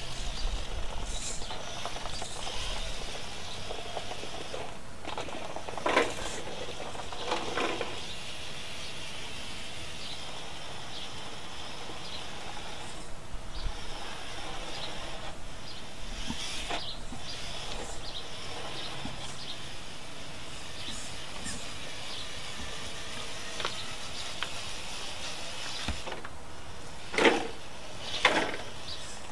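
1/8-scale RC rock crawler driving on concrete, its motor and gears whirring with a hiss. Near the end there are two short louder surges about a second apart as it climbs over a curb.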